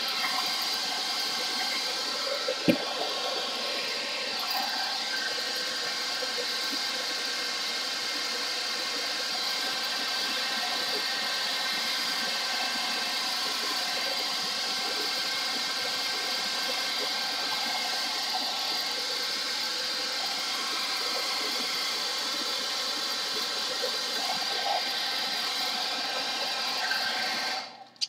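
Handheld hairdryer running steadily, a whine of many fine tones over the rush of air, cut off just before the end. A single sharp knock sounds about three seconds in.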